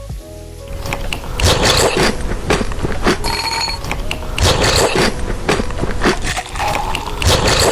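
Crunchy biting and chewing of food close to the microphone, in repeated noisy crunches. A brief high ringing tone sounds about three seconds in.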